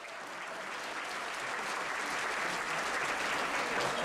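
Theater audience applauding, the clapping building gradually louder.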